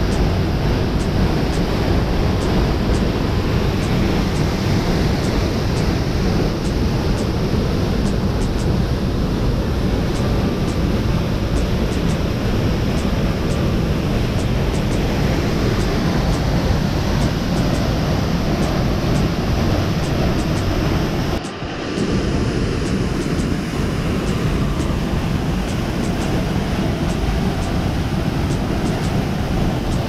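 Waterfall's steady rush of falling water, with a brief dip about twenty-one seconds in.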